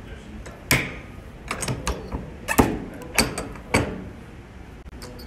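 Hand-operated button-maker press being worked: several sharp metallic clacks and clunks as the steel dies are swung and the lever is pressed, the strongest coming about once a second in the middle, then quieter.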